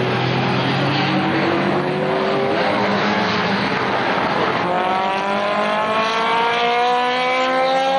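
1960s racing saloon cars passing at full throttle. A car's engine climbs steadily in revs early on, and from about halfway a higher-revving engine rises clearly in pitch as it accelerates past.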